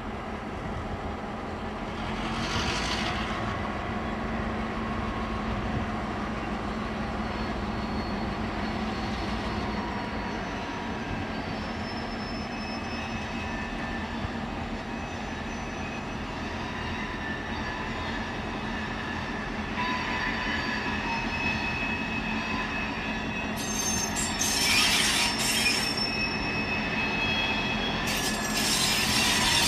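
Diesel locomotives X49 and H2 hauling a freight train slowly closer, their engines running steadily. Wheels squeal on the curve in several bursts, about two seconds in, around twenty seconds, and loudest near the end as the locomotives draw near.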